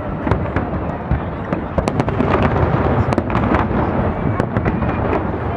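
Fireworks display: a continuous rolling rumble of shell bursts with many sharp crackles and pops scattered throughout.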